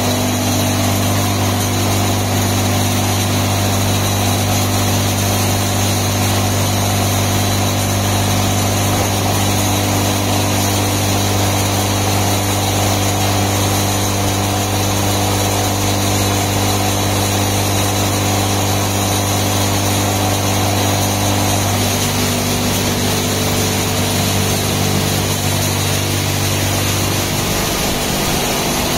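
Touchless automatic car wash running: a high-pressure pump's steady hum with water mist hissing onto the car body. The hum's tones shift about three quarters of the way through, and its lowest drone drops away near the end.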